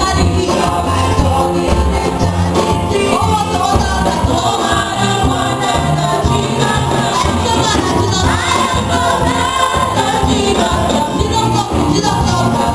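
Church music: voices singing over a band with a steady, pulsing bass beat.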